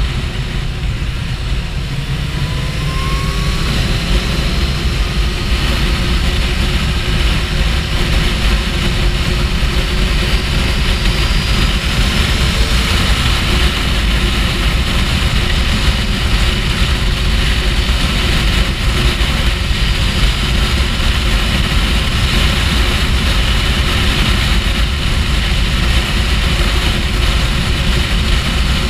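Heavy wind rushing over the microphone of a camera on a Kawasaki Ninja H2 at road speed, with the bike's supercharged inline-four running at a steady cruise underneath. The sound stays even throughout.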